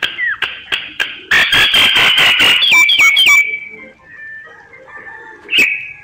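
Myna bird singing: a few clicks, then a loud run of rapid, harsh chattering notes with quick whistled glides near the middle, trailing off into softer, varied warbling and one short sharp note near the end.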